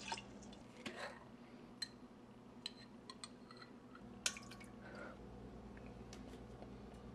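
Liquid splashing and dripping into a glass blender jar, with a few light clinks of glass and a sharper clink about four seconds in.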